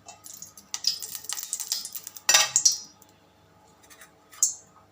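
Metal spoon clinking and scraping against a cooking pan, with a louder scrape about two and a half seconds in and one more short clink near the end.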